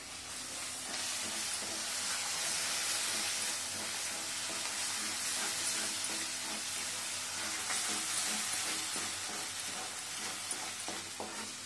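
Masala paste frying in oil in a kadai on a gas burner, sizzling steadily as it is stirred with a spatula.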